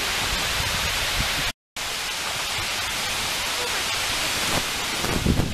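Steady rushing hiss of water spilling over a low river dam, with wind buffeting the microphone. The sound cuts out for an instant about one and a half seconds in, and a louder gust rumbles near the end.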